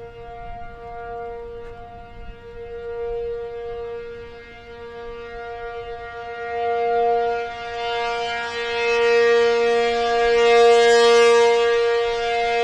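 ACA P-50 outdoor warning siren sounding a steady Alert tone. Its pitch holds level while its loudness swells and fades every few seconds, loudest near the end.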